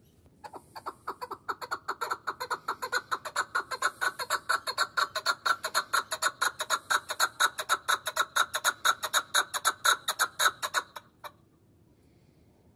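Caged chukar partridge calling: a long, rapid run of clucking 'chuck' notes, about seven a second, building in loudness over the first couple of seconds and stopping abruptly near the end.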